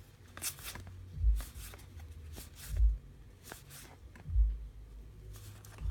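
Baseball trading cards being flipped through by hand one at a time, each card sliding off the stack with a short rustle, with a dull low thump about every second and a half.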